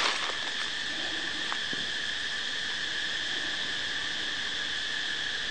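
Steady, high-pitched drone of insects calling, holding two shrill pitches without a break. A couple of faint ticks sound about a second and a half in.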